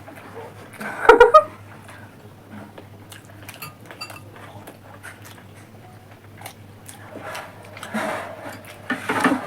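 Plates and cutlery clinking at a meal in small scattered clicks, with a brief loud sound about a second in and voices near the end.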